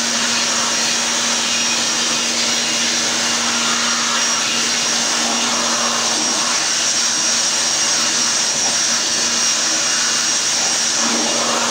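DeWalt handheld electric air blower running steadily, blowing dust out of an opened VFD power module: a continuous rush of air over a low motor hum.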